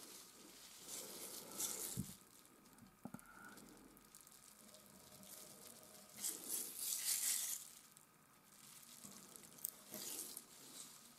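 Palette knife scraping and spreading oil paint in several strokes of a second or two each, the longest about six seconds in, with two light taps about two and three seconds in.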